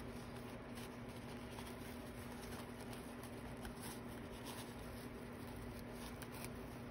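Faint rustling and handling of fabric and ribbon trim on a fabric-covered styrofoam disc, over a steady hum.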